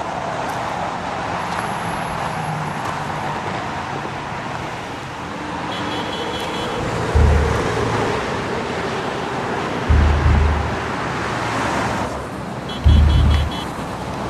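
Steady city traffic noise, with three deep low thumps about three seconds apart in the second half.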